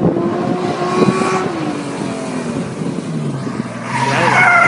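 BMW E21 engine revving, its pitch falling as it comes off the throttle. About four seconds in a loud, high squeal of tyres starts and carries on.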